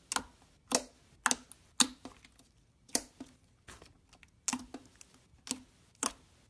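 Slime being poked and pressed, giving a run of sharp sticky pops and clicks, roughly two a second at an uneven pace.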